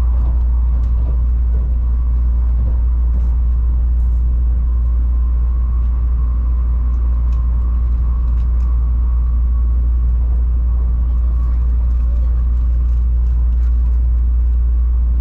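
Steady cabin running noise of an N700-series Tokaido Shinkansen train at speed: a deep, even rumble with a faint steady whine above it.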